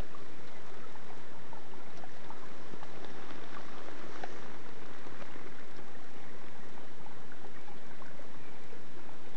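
Steady rush and trickle of running water, with a few faint ticks.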